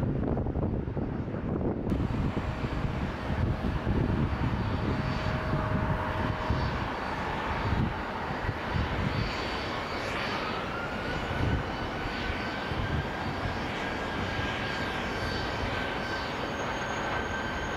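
Jet airliner engines running with a steady roar and a whine that rises in pitch about ten seconds in, then holds steady.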